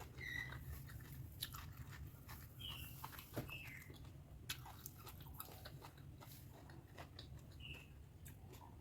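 Faint, close-miked chewing of pork fat curry and rice: wet mouth sounds with scattered small clicks and short squeaky smacks.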